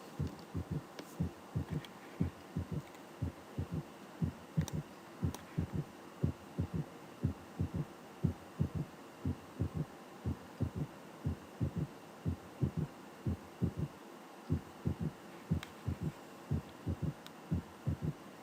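Recorded heart auscultation of an S3 gallop: steady low thuds of the first and second heart sounds, with an extra third sound early in diastole just after the second sound, a three-beat gallop rhythm. An S3 gallop is a sign of ventricular dysfunction.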